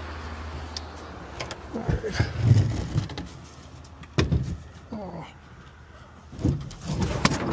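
Heavy particleboard cabinet panels being handled and shifted in a trailer: a series of knocks, thumps and scrapes of board on board, the loudest thump a little over two seconds in.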